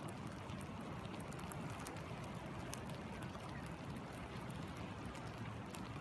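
Steady rush of a running river with rain falling on it and on a still pool, scattered small drop ticks over the low, even flow.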